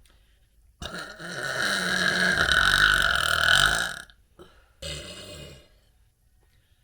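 A person burping: one long, loud burp lasting about three seconds, then a shorter, quieter burp about a second later.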